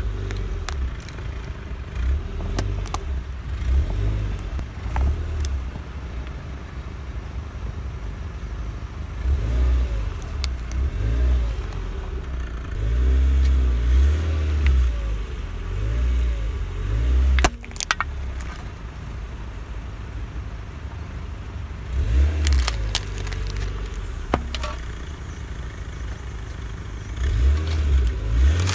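Car engine running at low revs as a tyre creeps over packed snow, with sharp cracks and crunches as objects are crushed under the wheel: a plastic toy car, then an aerosol can whose plastic cap snaps. The loudest crack comes a little past halfway, with more cracking a few seconds later.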